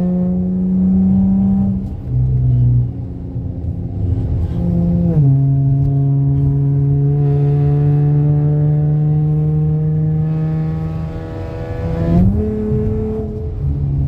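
Dodge Challenger engine breathing through a new Spectre cold air intake, pulling under acceleration. Its pitch drops sharply about five seconds in, then climbs slowly for several seconds before changing again near the end.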